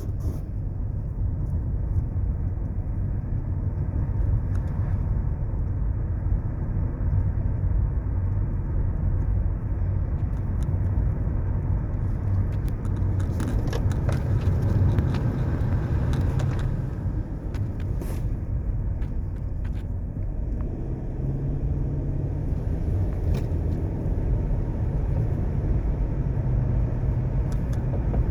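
Non-Hemi Dodge Magnum driving along a winding road: a steady low rumble of engine and tyre noise. About halfway through, a few seconds of scattered ticks and crackles break over the rumble.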